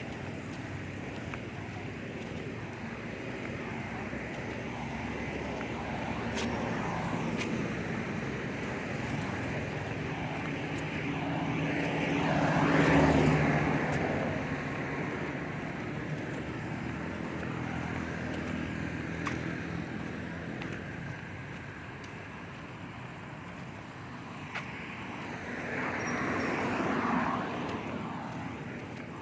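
Steady outdoor background noise with two motor vehicles passing by, each swelling and fading: the louder one about halfway through and another near the end.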